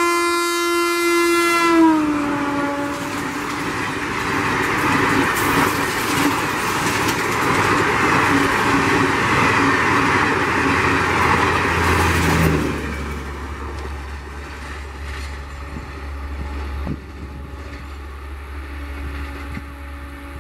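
Electric locomotive's horn blaring as the Chennai Garib Rath Express approaches at high speed, its pitch dropping sharply about two seconds in as the locomotive passes. The coaches then rush past for about ten seconds with a loud rush of wind and rhythmic wheel clatter. The sound drops suddenly to a quieter rumble of the train running away.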